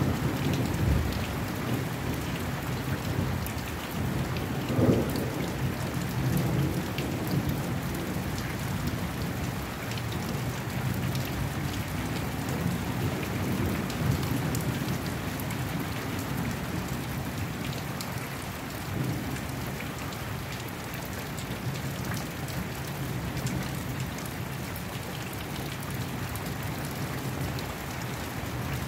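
Rain falling steadily during a thunderstorm, with low thunder rumbling through it; the strongest rumble comes about five seconds in.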